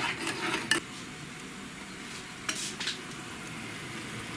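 Sugar and honey boiling in a small ladle, a steady bubbling hiss as the sugar slowly darkens toward burnt-sugar caramel. A spoon stirs and scrapes against the ladle a few times in the first second and again about two and a half seconds in.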